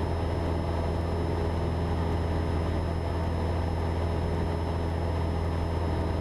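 Cessna 172 Skyhawk's piston engine and propeller droning steadily in cruise, heard inside the cabin.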